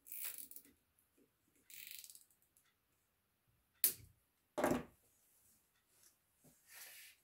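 Handling noises from a laser engraver's extrusion frame and its spiral-wrapped cables being worked on a wooden bench: rustling and scraping, a sharp click just before four seconds, and a dull knock about a second later as the frame is moved.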